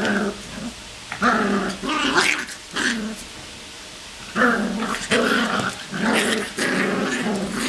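Cocker spaniel puppies growling in play as they wrestle, a string of short growls with a pause of about a second midway.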